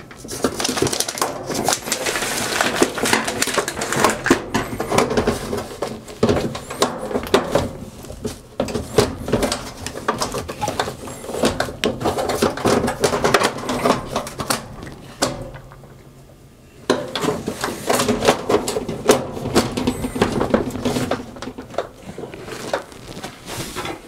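Irregular clattering, clicking and knocking of a dryer's control console panel and its wiring being handled, lowered and set back into place, with a short pause about two-thirds of the way through.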